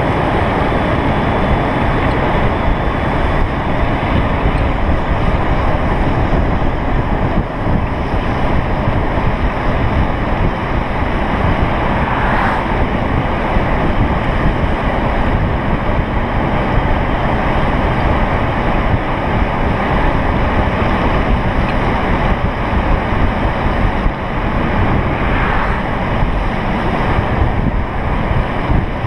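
Loud, steady rush of wind over the camera microphone at downhill longboarding speed, with the rolling of longboard wheels on asphalt mixed in.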